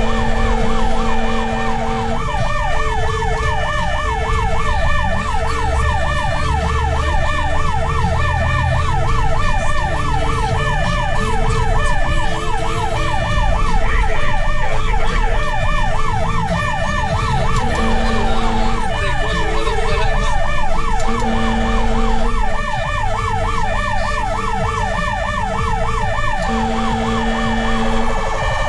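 Fire rescue truck's siren running on a fast yelp, with a second pulsing tone and the truck's engine rumbling beneath. A deep horn sounds at the start and three more times in the second half, each time while the yelp pauses.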